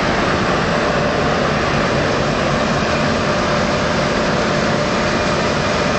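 Claas Lexion 580 combine harvester running steadily while harvesting wheat: a constant dense mechanical noise with faint steady whining tones.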